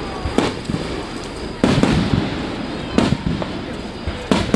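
Aerial firework shells bursting overhead: four loud booms roughly a second and a quarter apart, each echoing back off the surrounding mountains.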